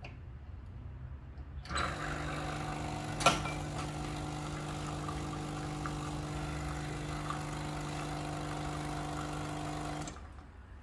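Quick Mill Rubino espresso machine's vibratory pump humming steadily as hot water flushes through the E61 group head to heat the locked-in portafilter. It starts about two seconds in and cuts off sharply near the end, with one sharp click early on.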